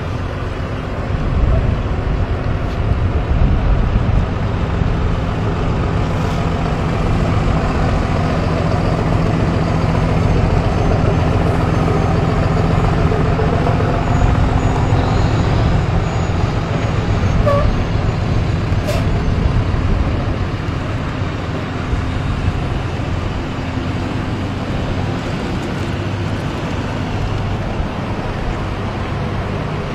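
A line of tow trucks driving slowly past, their engines running with a steady low drone.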